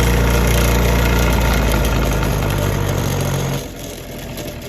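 Electric grinding wheel running with a steady motor hum, used to grind the threaded section off a pen part. About three and a half seconds in, the sound drops suddenly to a quieter level.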